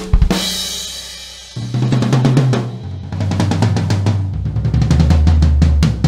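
Vintage Yamaha 9000 series birch drum kit being played. It opens with a cymbal crash and bass drum hit whose wash rings out and fades. Then a fast fill runs around the toms, dropping lower in pitch in steps about one and a half, three and four and a half seconds in.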